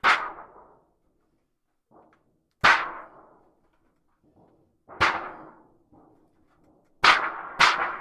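A large thin metal sheet shaken and flexed by hand as a thunder sheet: five sharp cracks, each dying away within about a second, the first four a couple of seconds apart and the last two close together near the end.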